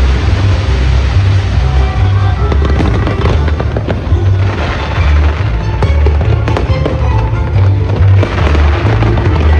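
Fireworks going off with repeated sharp cracks, mixed with loud accompanying show music.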